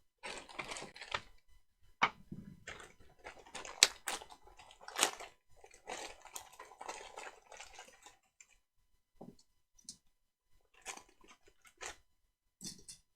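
Small metal hose clamps being handled and counted out: crinkly rustling with sharp clicks and clinks as the parts are picked up and set down, busier in the first half and sparser toward the end.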